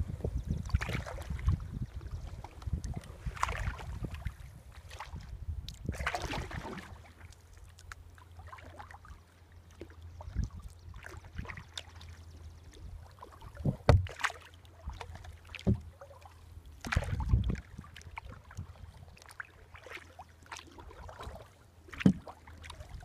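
Kayak paddle strokes: the blade swishing and splashing into calm river water at an uneven pace, with a few louder knocks or splashes around the middle and near the end. Wind rumbles on the microphone for the first several seconds.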